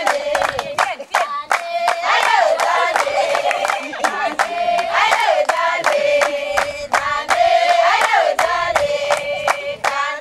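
A group of women singing together, a short phrase rising and falling about every three seconds, over steady rhythmic handclapping.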